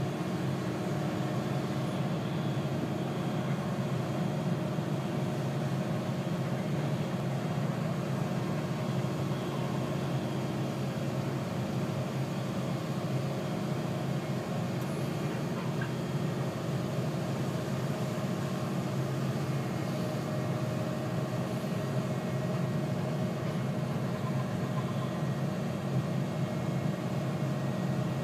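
Caterpillar 329 hydraulic excavator's diesel engine running at a steady, even pitch, heard from inside the cab as the machine travels on its tracks.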